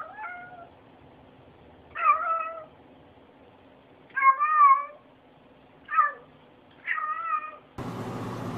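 A domestic cat meowing about five times, short calls that bend in pitch, spaced a second or two apart. A steady background hiss comes in near the end.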